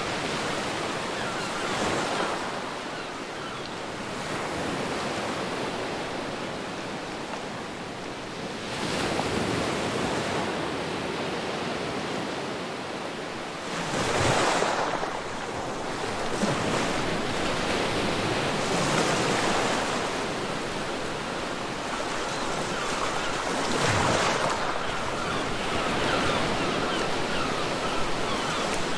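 Ocean waves breaking on a beach, a continuous surf wash that swells with each breaker about every five seconds; the loudest surge comes about halfway through.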